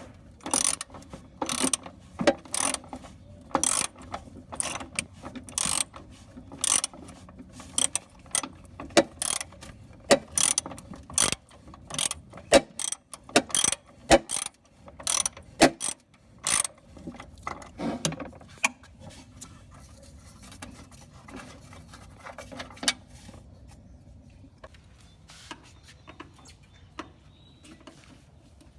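Hand ratchet being worked in short strokes, a burst of rapid clicks on each back-swing, about one to two strokes a second, loosening fasteners on a riding mower. The strokes stop a little over halfway through, leaving only faint scattered handling sounds.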